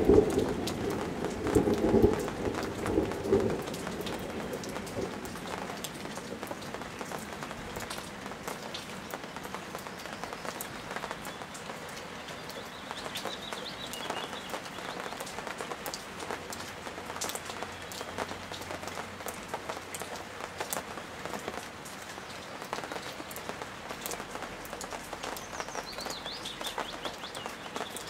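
Steady rain falling in a thunderstorm, a haze of patter and many small drop ticks. The tail of a thunder rumble fades away over the first few seconds, and a bird chirps briefly twice, around the middle and near the end.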